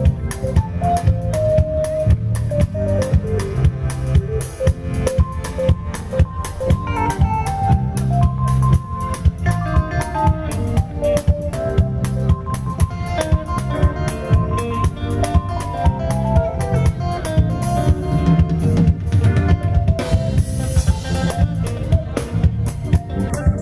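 Live band of drum kit, bass guitar, electric lead guitar and keyboard playing an instrumental groove together, with a steady driving drum beat and a melodic line running over it; a cymbal crash rings out about twenty seconds in.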